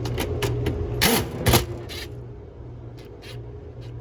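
Sharp metallic clicks and clanks of hands working the old run capacitor and its metal mount, the two loudest a little past a second in, over a steady low hum.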